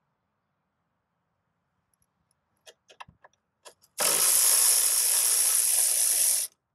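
Cordless electric ratchet spinning a socket on a long extension to back out a bolt: a steady whir that starts suddenly about four seconds in, runs about two and a half seconds and cuts off suddenly. Before it come a few light metal clicks.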